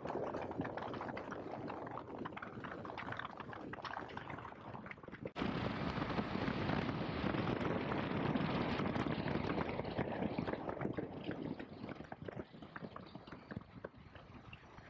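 Motorcycle riding on the road: engine and wind rush on the microphone. About five seconds in the sound jumps suddenly louder, then slowly fades.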